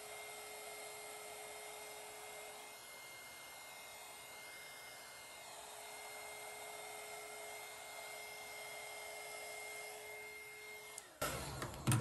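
Handheld craft heat gun blowing steadily across wet epoxy resin, a soft fan hiss with a faint steady motor hum, fanning a white resin line out into sea-foam lacing. It cuts off about eleven seconds in, followed by a couple of sharp knocks.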